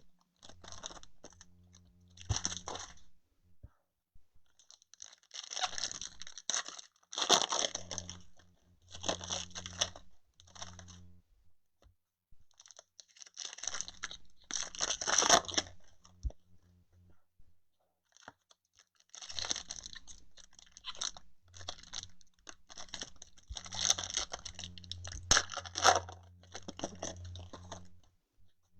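Trading card pack wrappers being torn open and crinkled by hand, in several bursts of crackly tearing with short pauses between packs.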